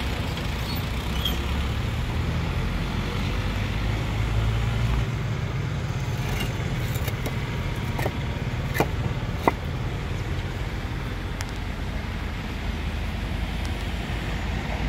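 Steady low rumbling outdoor noise, with two sharp clicks a little past halfway.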